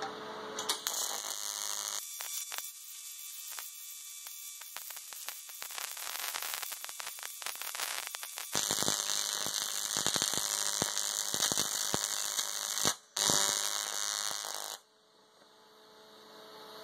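AC TIG welding arc on 3 mm aluminium at about 100 amps from a Jasic TIG200PAC/DC welder: a steady buzzing hiss thick with crackle that starts about a second in. It breaks off for a moment about three-quarters through, then stops abruptly about two seconds before the end.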